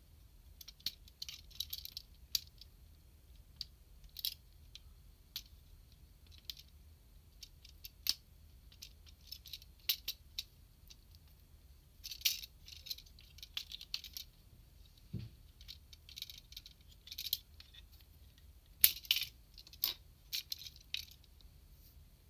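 Plastic parts of the SMP GaoKing candy-toy robot figure clicking and rattling as it is handled and posed, its shark and tiger arm pieces being pulled and turned. Scattered sharp ticks come in short rattling clusters, the loudest a little before the end.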